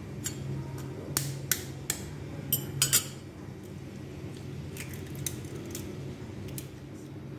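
An egg tapped against the rim of a glass bowl and its shell cracked open: a series of sharp taps and cracks, closely spaced and loudest in the first three seconds, then a few fainter clicks. A low steady hum runs underneath.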